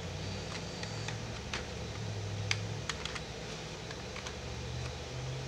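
Scattered, irregular clicks of computer keys and a mouse during spreadsheet data entry, about a dozen over the few seconds, over a faint low hum.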